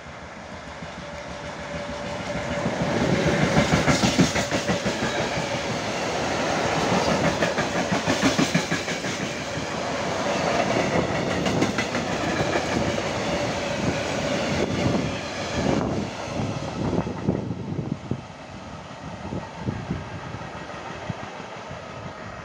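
Freight train of tank wagons hauled by a Siemens Vectron electric locomotive (class 1293) passing through: the locomotive goes by about three to four seconds in, then the wagons' wheels clatter rhythmically over the rail joints, thinning to separate clicks and fading as the train moves away after about seventeen seconds.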